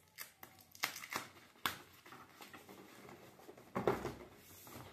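Cardboard packaging of a keyboard box being opened by hand: scattered clicks, scrapes and rustles, with a louder thump about four seconds in.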